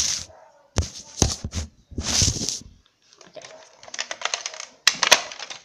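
Clicks, rattles and knocks of hard objects being handled, with a short rustle and two sharp knocks close together near the end.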